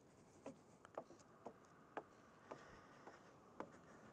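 Faint footsteps at a walking pace, about two a second, as soft regular clicks over near silence.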